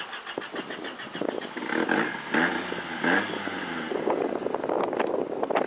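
Toyota 4Runner's engine revving up and down in bursts as it crawls up a steep rocky slope, its pitch rising and falling, with rocks crunching and clattering under the tyres in the last couple of seconds.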